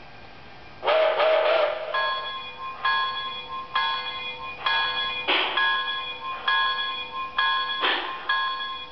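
Electronic locomotive bell from a model train's sound decoder, ringing steadily at about one strike a second, with a few louder hissing bursts in between.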